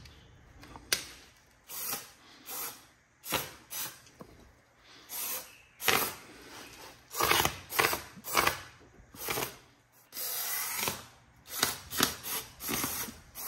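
Aerosol spray can sprayed at a rear brake caliper and rotor in repeated short bursts, with one longer spray about ten seconds in. Just before, a wrench works a caliper bolt and clicks once about a second in.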